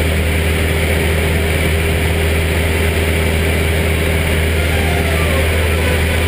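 Cessna 172's engine and propeller running at a steady drone in level flight, heard from inside the cabin.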